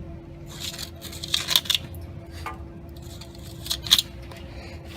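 Knife blade cutting and scraping out old caulking sealant from a window joint, in three short bouts of gritty strokes, the sharpest about a second and a half in and near four seconds.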